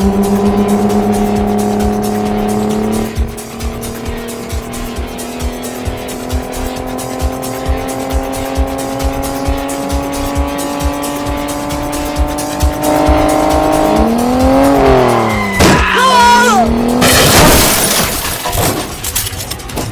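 Car engine revving, its pitch climbing slowly, then swooping up and down with tyre squeals, followed by a loud rush of noise in the last few seconds. Background music with a steady beat plays underneath.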